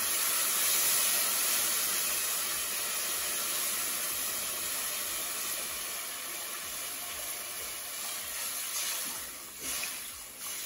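Hot ghee-roasted semolina hissing and sizzling as water is poured into the pot, the steam hiss steady and slowly dying down. Spatula strokes scrape and stir through the mixture near the end.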